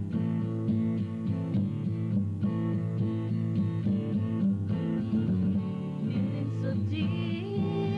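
Acoustic rock song: guitars playing a steady, repeating chord pattern, with a voice coming in on a long held note about seven seconds in.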